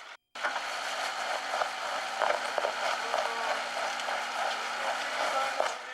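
Rain pattering steadily, with many small drop ticks, over a low steady hum.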